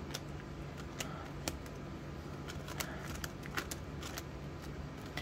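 Light rustling and scattered soft clicks of banknotes and plastic binder envelopes being handled and counted.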